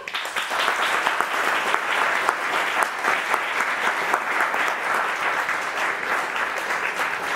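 An audience applauding: dense, steady clapping from many hands that breaks out suddenly and keeps going.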